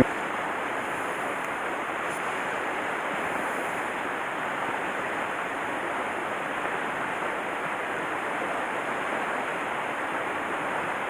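Steady rushing of a mountain stream's flowing water, an even, unbroken hiss.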